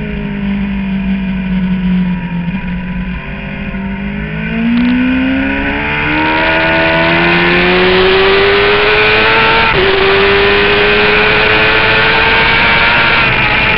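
Suzuki GSX-R750 inline-four engine, heard from a camera on the bike. It is held at low, steady revs through a corner, then revs rise steadily under hard acceleration from about five seconds in, with a brief dip at an upshift near ten seconds. A rush of wind noise grows as the bike gains speed.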